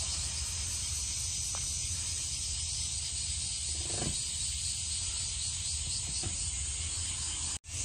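Steady hiss of insects in the summer grass with a low wind rumble on the microphone; a faint short call rises about four seconds in, and the sound drops out for an instant near the end.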